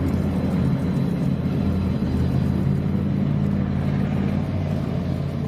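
Military tank running: a steady low engine rumble with a drone under it, beginning to fade near the end.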